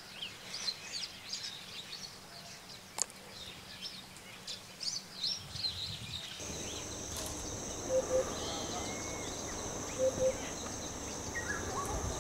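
Outdoor ambience of small birds chirping and twittering in quick short notes. About six seconds in, the sound changes to a steady high insect buzz, with a low two-note call repeating about every two seconds.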